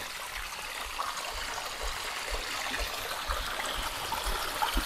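Thin stream of mountain water trickling and splashing down over layered rock ledges, a steady hiss.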